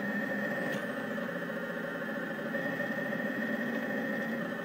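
Rostock delta 3D printer running mid-print: its stepper motors whine with a steady high tone over a fast, fluttering hum as the carriages move on their rods.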